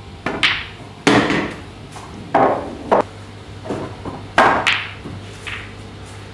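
Pool shot on a table of red-and-yellow English pool balls: the cue strikes the cue ball and the balls clack against each other and the cushions. There are about seven sharp knocks over five seconds, the loudest about a second in and again past the four-second mark.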